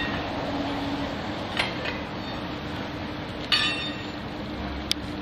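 A steel point bar clinking against tram rails and points as the track switch is changed by hand: three sharp metallic clinks that ring briefly, the loudest about three and a half seconds in, over a steady low hum.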